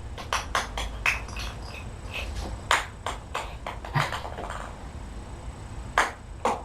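Scattered light clicks and knocks at irregular intervals, the clearest about a second apart early on and another pair near the end, over low steady room noise.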